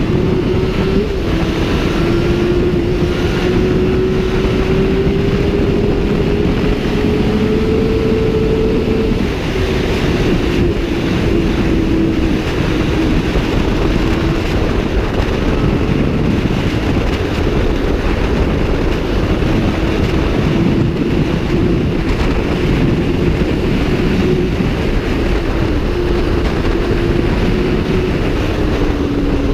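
Suzuki GSX-R 750 SRAD's inline-four engine running at high speed under heavy wind rush on the microphone. The engine note climbs steadily for about eight seconds, drops off at about nine seconds, then holds fairly level.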